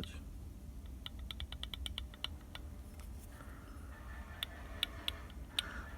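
Faint, light clicking from a used GMB water pump turned by hand: a quick run of about eight clicks a second about a second in, then a few scattered clicks near the end. It is the knock from free play inside the pump's shaft, which the seller claims a new pump has too.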